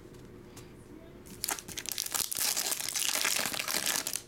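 Foil wrapper of a 2021 Topps Stadium Club baseball card pack crinkling and tearing as the pack is ripped open. It starts about a second and a half in, goes on as a dense crackle, and stops just before the end.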